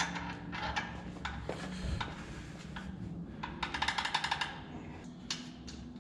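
Hand ratchet clicking in a quick run of about a dozen clicks a little after halfway, as a bolt is run in on the engine mount of a chassis, with scattered small metal clinks around it.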